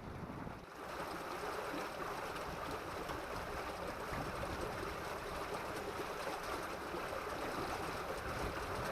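Steady rush and splash of water stirred up by a small boat moving through calm water.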